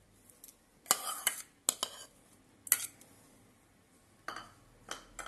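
A steel spoon clinking and scraping against bowls as chopped capsicum is scooped into a stainless steel mixing bowl: a handful of sharp clinks in the first three seconds, then a few more near the end.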